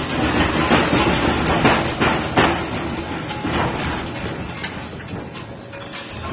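Scrap rebar cutting machine running, with a steady mechanical din and frequent irregular metallic clanks as steel bar is cut into short pieces. The clanks are heaviest in the first half.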